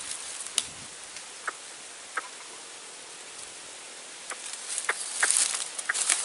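A few scattered sharp clicks, then denser crackling and rustling from about four seconds in.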